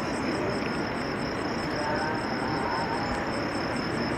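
Steady, even background rumble with a faint high-pitched pulse repeating about three times a second.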